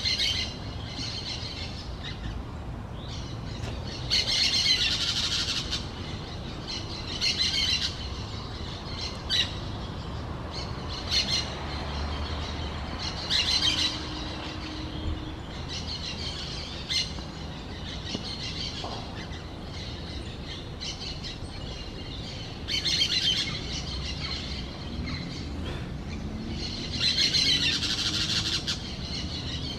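Orange-chinned parakeets calling in bursts of high, rapid chattering every few seconds, with single short chips in between.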